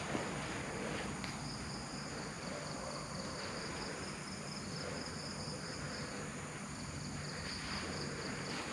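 Insects chirring steadily in a high, thin band that fades down and back up about two thirds of the way through, over a low background hiss.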